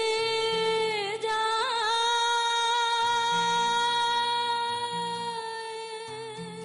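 A woman singing a naat, holding one long note for most of the stretch with a brief ornamental turn about a second and a half in. Soft low accompaniment notes change underneath. The note fades near the end.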